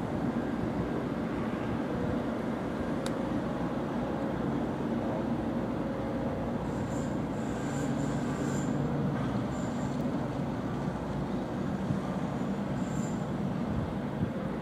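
Hitachi ZX135US hydraulic excavator's diesel engine running steadily under load, with hydraulic whine, as it lifts a bucket of wet river sediment and swings it over to load a carrier dump. Short high-pitched squeals come several times in the second half.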